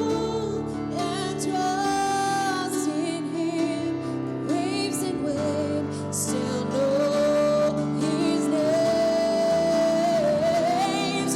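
A gospel song: a voice singing long held notes with a slight waver in pitch over instrumental accompaniment.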